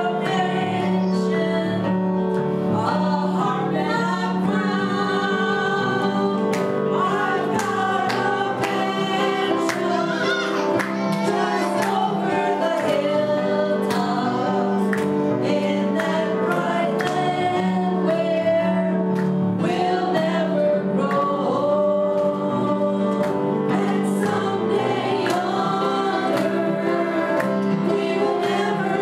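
Two women singing a gospel song together into microphones, with keyboard accompaniment: a steady sung melody over sustained chords.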